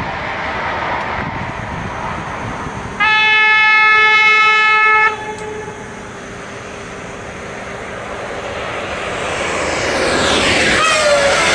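High-speed electric trains running by with a steady rushing noise. About three seconds in, a train horn sounds one loud steady note for about two seconds and cuts off suddenly. Then another train's noise grows louder as it approaches, with a falling whine near the end as it passes.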